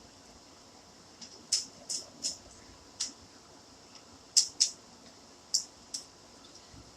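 Irregular sharp clicks and taps of small laptop parts and tools being handled during a CPU swap, about nine in all, some coming in quick pairs.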